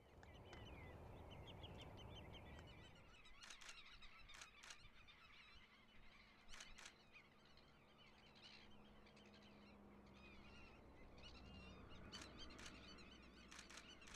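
Faint outdoor bird ambience: many short chattering calls with a few louder, sharper calls, over a low steady rumble.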